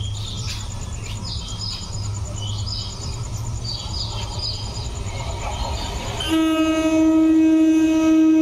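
An approaching train's horn sounds one long, steady blast starting about six seconds in and is the loudest thing heard. Before it, there are small bird chirps over a low, steady rumble.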